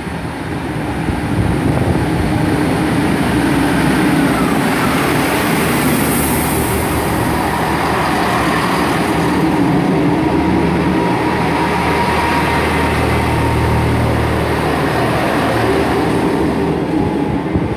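A pair of coupled Class 158 diesel multiple units pull away and pass close by, their diesel engines running under power with a steady low drone. The sound builds over the first couple of seconds and then stays loud.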